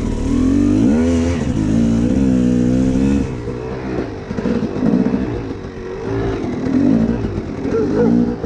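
250 cc two-stroke dirt bike engine being ridden, its revs rising and falling several times as the throttle is worked. From about three seconds in it runs lower and less steadily.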